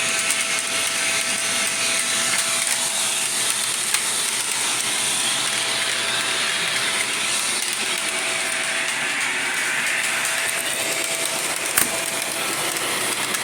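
Shark Rotator vacuum cleaner running steadily, loud, with a rattling mechanical noise over the motor. A single sharp click comes near the end.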